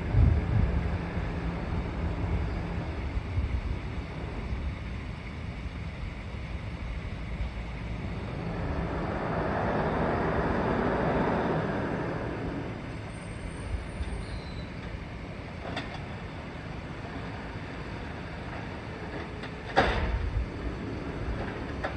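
Garbage truck's diesel engine running with a steady low rumble, swelling louder for a few seconds midway, with a couple of sharp knocks later on, the loudest near the end.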